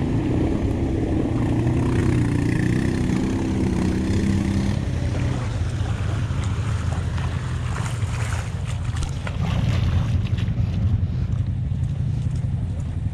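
Off-road vehicle engine running steadily as it wades through floodwater. Its higher note drops away about five seconds in, and water sloshes around it.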